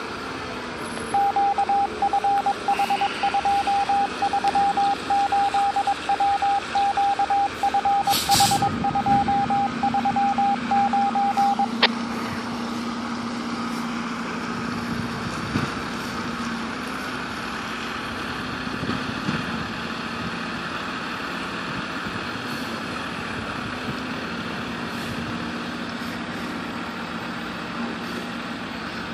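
Fire ladder truck's backup alarm beeping in a fast single-pitch pattern for about ten seconds, then stopping. There is a short hiss of air about eight seconds in. After the beeping stops, the truck's diesel engine carries on as a steady low hum.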